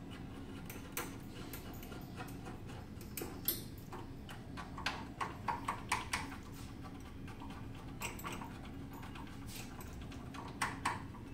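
Short plastic clicks and taps as a black cable connector and its clip are handled and fitted on the side panel of a resuscitator. The clicks come singly about a second in, in a quick cluster in the middle and twice near the end, over a steady low hum.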